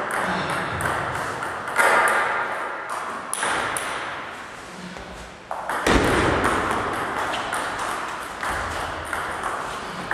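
Table tennis rally: the celluloid ball clicking off the bats and table in quick succession, echoing in the hall. There is a louder, deeper thump about six seconds in.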